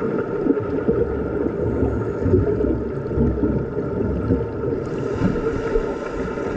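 Underwater pool ambience heard through a submerged camera: a steady, muffled rumble and swish of water churned by finned swimmers, with bubbling.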